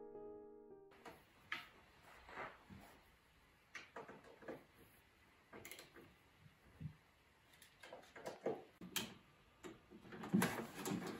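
Piano music ends about a second in. Then come faint scattered clicks, taps and rustles of hands handling cables and items in a wooden TV cabinet, coming closer together and louder near the end.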